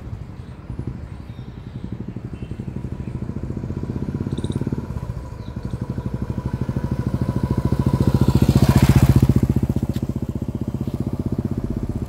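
Royal Enfield single-cylinder motorcycle with a Red Rooster aftermarket silencer riding past, its exhaust beating in quick, even pulses. It grows louder as the bike approaches, is loudest about nine seconds in as it passes, then fades as it rides away.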